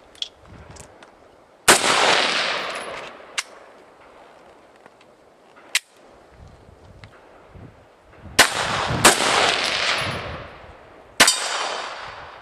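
Four rifle shots at uneven intervals, two of them less than a second apart. Each crack is followed by a long echo rolling back off the surrounding hills.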